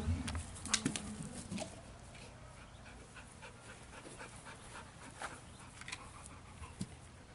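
A dog panting softly as it runs back with a ball in its mouth, with a few sharp clicks in the first two seconds.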